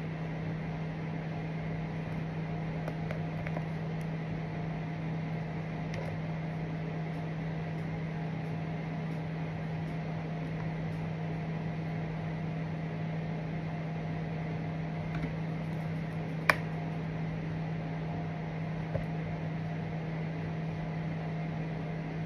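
A steady low mechanical hum, like a kitchen appliance or fan running, with a faint hiss. One sharp click comes about three-quarters of the way through.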